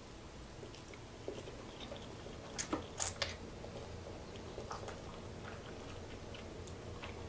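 A person chewing a mouthful of soft macaroni and cheese, with quiet wet mouth sounds and a few louder clicks about three seconds in.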